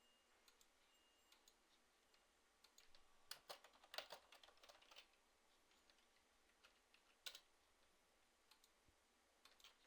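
Faint computer keyboard keystrokes, a quick cluster of keys about three to four seconds in and a single key press a little after seven seconds, over near silence.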